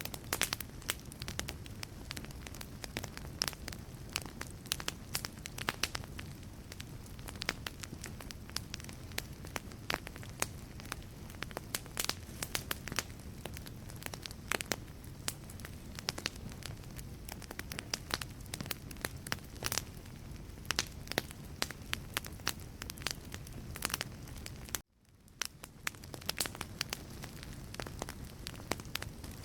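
Wood logs burning in a fireplace: a steady low rumble of flame with many sharp crackles and pops. About three-quarters of the way through the sound cuts out for a moment and fades back in.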